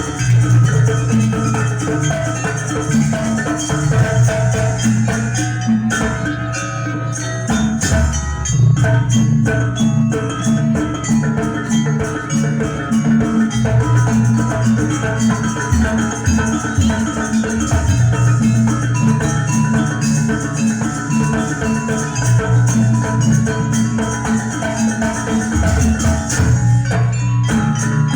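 Live East Javanese jaranan gamelan music: struck bronze metallophones playing interlocking melodic patterns over drums and a repeating low-note figure.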